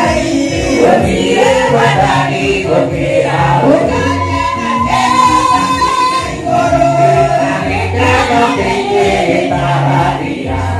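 Gospel praise music: a choir of voices singing over a steady drum beat and bass line.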